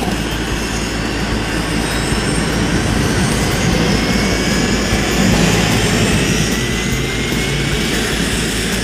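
Helicopter turbine engine and rotor running, with a turbine whine slowly rising in pitch as the engine spools up at start-up.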